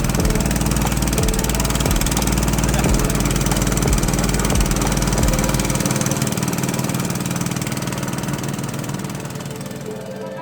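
Boat engine running steadily; the deep low rumble drops away about six seconds in and the sound slowly fades toward the end.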